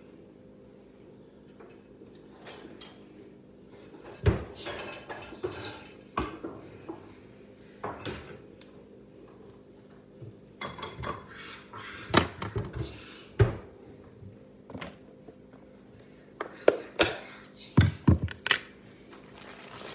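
Kitchen things handled on a countertop during cooking prep: scattered clatters and knocks of dishes, utensils and plastic containers being picked up and set down, busiest near the end, over a steady low hum.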